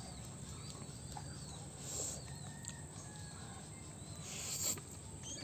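Slurping of instant noodles being sucked into the mouth, softly about two seconds in and louder shortly before the end. Faint birds chirp in the background.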